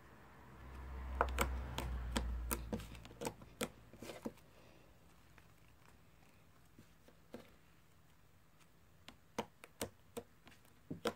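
Slime being handled, giving scattered sharp clicks and pops, with a low rumble of handling over the first few seconds. The clicks bunch in the first four seconds, fall quiet, then return near the end.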